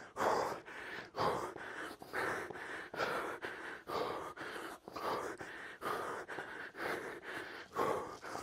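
A man breathing hard and fast from exertion, a heavy breath about once a second.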